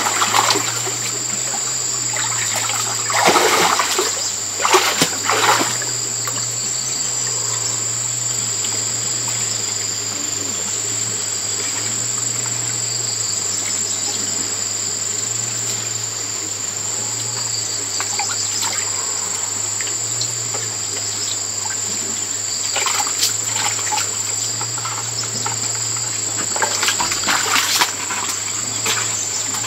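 Splashing as a person wades through shallow muddy water, in bursts near the start and again in the last seconds, over a steady high insect drone and a low steady hum.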